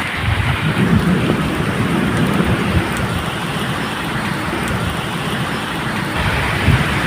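Steady medium rain falling, with a low rolling rumble of thunder underneath and a few sharp drop ticks.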